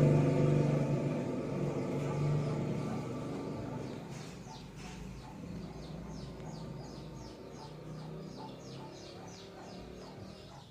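A motor vehicle's engine hum fading away over the first few seconds, then a bird chirping in a quick series of high, down-slurred notes, several a second.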